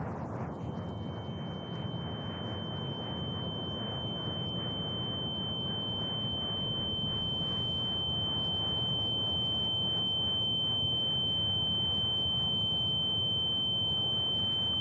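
A steady, high-pitched electronic tone sounding on one pitch, like a buzzer, over a low noisy rumble. A fainter, even higher whine joins it and cuts off about halfway through.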